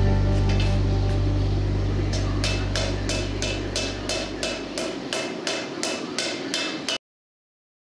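Hand hammer striking a red-hot pattern-welded steel bar on an anvil in a steady rhythm, about three blows a second, while background music fades out underneath. The hammering cuts off abruptly near the end.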